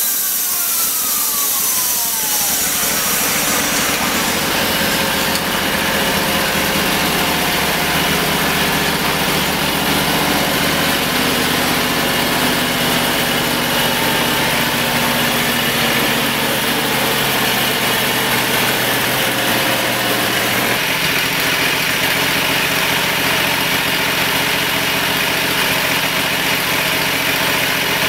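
The 22-horsepower V-twin engine of a homemade bandsaw sawmill runs steadily out of the cut, with the band blade spinning free. In the first two seconds there is a falling whine, and the sound shifts about three-quarters of the way through.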